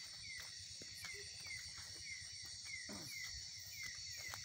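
Night chorus of insects: a steady high-pitched buzz, with short falling chirps repeated two or three times a second. Faint knocks of footsteps are scattered through it.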